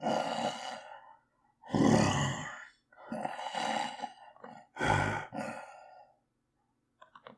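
A man's voice groaning and growling in four strained bursts of about a second each, performed as a man turning into a werewolf. A few faint quick clicks near the end.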